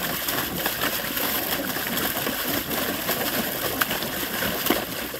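A Saint Bernard splashing in a shallow plastic kiddie pool, pawing and plunging into the water: a continuous run of splashes and sloshing.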